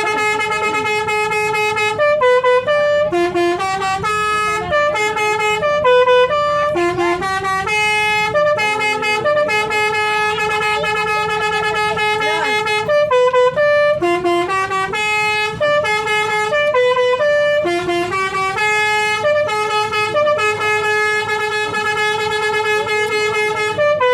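Basuri telolet multi-tone horn playing a long melody, one note after another with short gaps between phrases, over a steady low hum.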